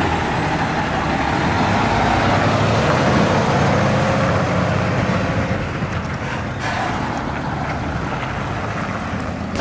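Diesel semi-tractor pulling a belly-dump trailer passing slowly at close range, its engine running steadily. It is loudest about three seconds in and eases off as it moves away.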